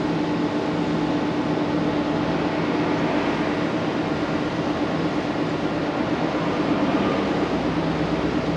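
A steady machine hum with an even rushing noise under it, unchanging throughout.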